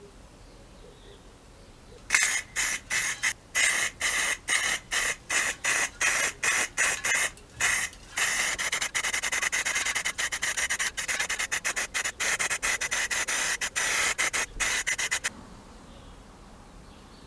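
Back-and-forth rubbing strokes by hand on a surface, of the kind made when sanding or scrubbing a part during restoration. The strokes come about two a second, quicken to about five a second about halfway through, and stop near the end.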